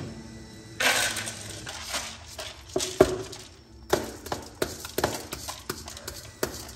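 Drained sticky rice tipped from a stainless-steel mesh colander into a plastic basin: a short rush of grains sliding out about a second in, then a run of irregular knocks as the colander is tapped to shake the last grains loose.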